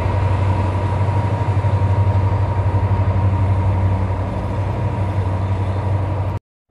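Norfolk Southern freight train passing at close range: a loud, steady low drone that pulses rhythmically, with a thin steady whine above it. The sound cuts off abruptly just before the end.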